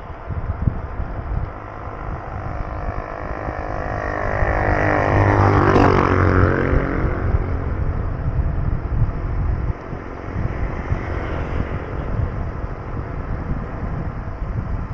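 Wind buffeting the microphone of a moving bicycle, and a motor vehicle passing close by: its engine builds up, is loudest about six seconds in, then fades away.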